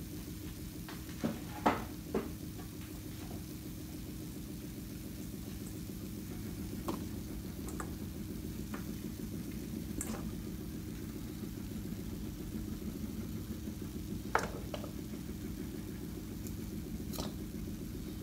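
Steady low hum of a running appliance, with a few sharp clicks and taps as vegetable pieces are set into a stainless steel pan, two of them louder near the start and one more a little past the middle.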